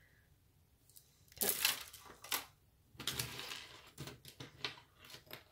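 Jewelry being handled: beads and metal chains clinking and jingling against each other and the table in several short bursts, starting about a second and a half in.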